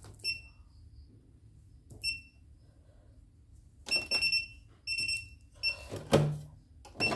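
CNY E960 computerized embroidery machine beeping as its touchscreen keys are pressed: two short beeps a couple of seconds apart, then a quicker run of about five. Near the end comes a louder mechanical clunk from the machine.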